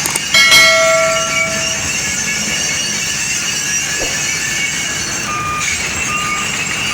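Heavy earthmoving machinery running steadily, with a loud metallic clang just after the start that rings and fades over about a second and a half. Near the end a reversing alarm starts beeping, about one short beep every three-quarters of a second.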